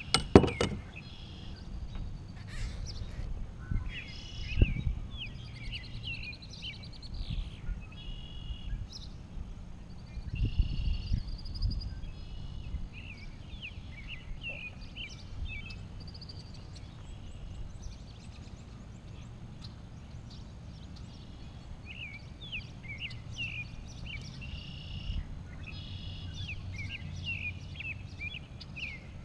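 Songbirds chirping in quick short notes, busiest near the end, over a faint low rumble. A sharp click comes right at the start, and a few dull knocks come about five and eleven seconds in.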